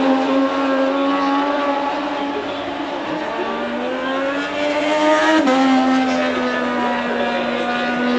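Racing motorcycle engines running at high revs on the circuit, a steady high-pitched engine note that climbs slightly and then drops sharply about five seconds in as a bike passes.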